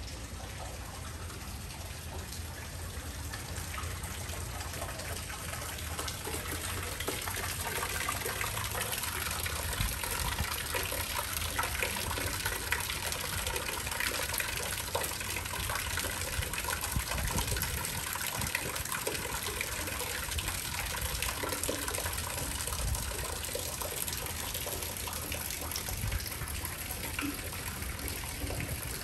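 Fountain water pouring from a spout and splashing into a stone basin, a steady trickling gush that grows louder over the first ten seconds or so.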